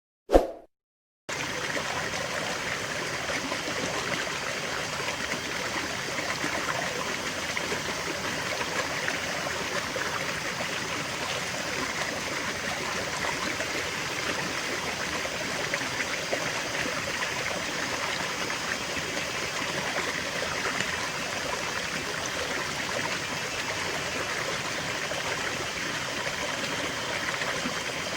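A brief sharp sound, then about a second in a waterfall's steady rushing water starts and runs on evenly.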